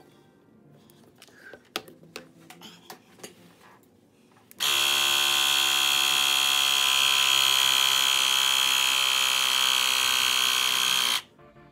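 A battery-powered portable air compressor inflating a basketball, its small pump motor running with a steady, loud buzz. It starts abruptly about four and a half seconds in and cuts off sharply near the end.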